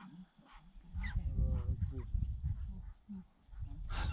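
A short whining animal call about a second in, over a low rumble, with a faint high chirp repeating about twice a second throughout.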